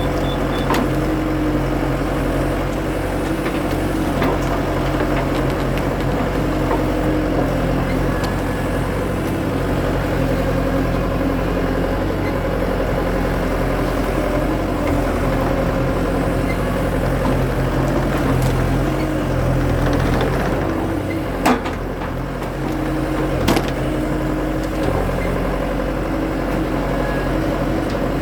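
Skid steer engine running steadily under hydraulic work, its pitch wavering slightly. Two sharp knocks about two seconds apart come in the second half.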